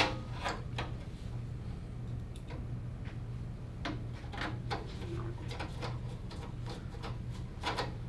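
A PC case's rear cover plate snaps into place with a sharp click at the start, then a screwdriver turning its screw makes scattered light ticks and clicks. A low steady hum runs underneath.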